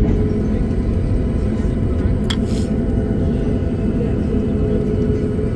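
Jet airliner cabin noise while the plane taxis on the runway: a steady low rumble from the engines and the rolling wheels, with a faint steady hum. A brief click about two seconds in.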